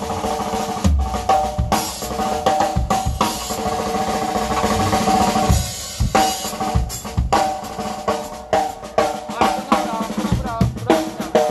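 Drum kit solo played live: fast snare and bass-drum hits with rolls and rimshots, over a steady held note. The playing thins out briefly about six seconds in, then the rapid hits resume.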